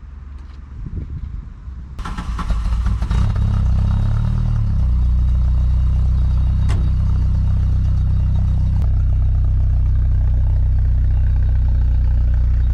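Car engine running with a low drone: it rises and shifts for a few seconds, then settles to a steady even hum.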